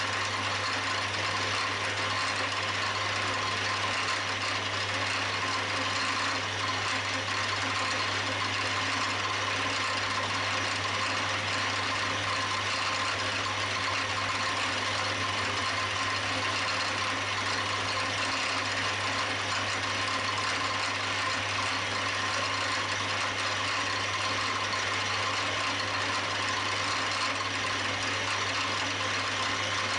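Milling machine running steadily, its spindle turning a small end mill that cuts the port into a model engine cylinder's valve seat face. It is a constant low hum with a steady whine over it.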